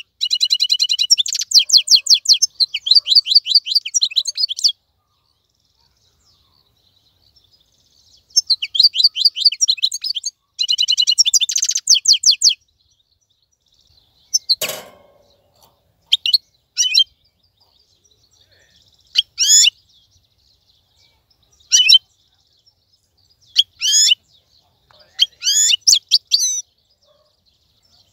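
Wild-caught European goldfinch singing: two long phrases of fast, bright twittering trills, then a run of short separate notes that sweep up and down. A single knock sounds about halfway through.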